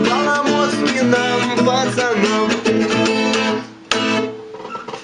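Acoustic guitar strummed in chords under a man's singing voice, which is heard mainly in the first second. The playing breaks off about three and a half seconds in, then a single last strummed chord rings and fades out.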